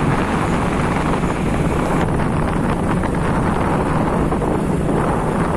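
Wind buffeting the microphone over the running noise of a moving vehicle, a loud steady rush with no break.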